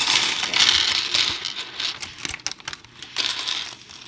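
Small plastic LEGO pieces clattering and rattling, with a plastic parts bag rustling, in quick bursts of clicks. The run is busiest in the first second and a half.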